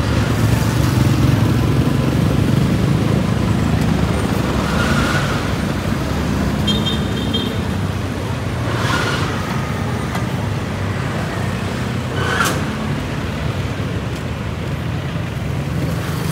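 Road traffic: motor vehicle engines running with a steady low hum, with a short high beep about seven seconds in.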